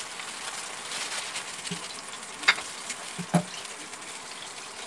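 Noodle water with chopped vegetables boiling hard in a steel pan on a gas stove: a steady bubbling hiss, with two short sharp clicks a little after halfway through.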